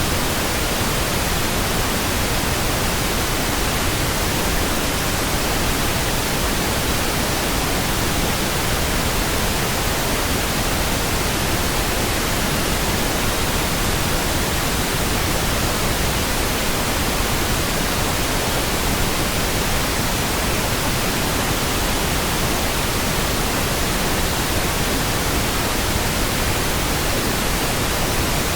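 Synthetic pink noise: a steady, even hiss spread across all pitches with no changes or events.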